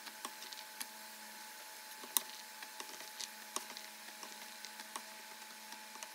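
Diced carrot pieces dropping and clicking into the stainless steel inner pot of an Instant Pot, with a knife and fingers tapping and scraping pieces across a wooden cutting board. These are scattered light clicks, the sharpest about two seconds in, over a faint steady electrical hum.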